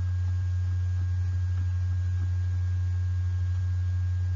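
Steady low electrical hum on the recording, unchanging in pitch and level, with faint high steady tones above it over a light hiss.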